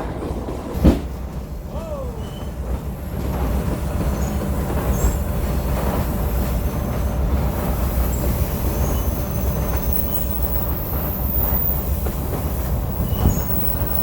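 Passenger train rolling along the rails, heard from aboard: a steady low rumble of the cars, with one sharp knock about a second in and faint high wheel squeal later on.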